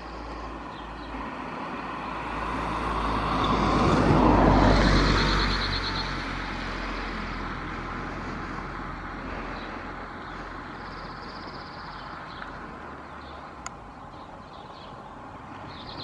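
A road vehicle passing, swelling to its loudest about four seconds in and then fading. Over it, a male cirl bunting sings a short, rapid trill of repeated notes on one pitch about five seconds in.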